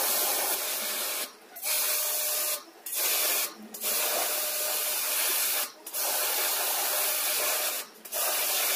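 High-pressure water from a jet-pump spray gun washing a split AC's indoor evaporator coil: a loud, even hiss in runs of one to two seconds, broken by about five short pauses as the trigger is released and pressed again.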